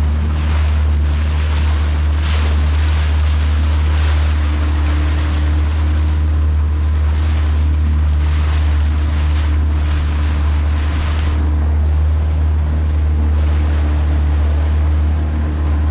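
Outboard motor running steadily at trolling speed, with a low hum under water washing and splashing past the hull in repeated surges, and wind on the microphone.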